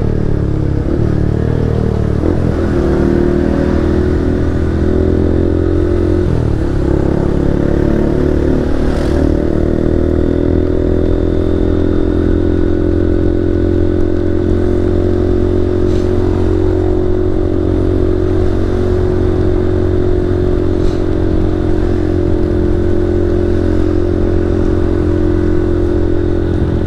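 Single-cylinder 160cc motorcycle engine running under way. Its pitch dips and rises a few times in the first seven seconds, then holds steady at a cruise.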